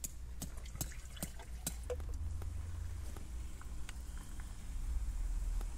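Liquid poured from a green glass bottle into a stainless steel tumbler, dripping and splashing in small clicks, then more liquid poured in from a clear bottle. A low rumble runs underneath.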